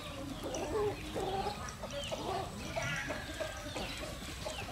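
Chickens clucking, many short calls overlapping irregularly.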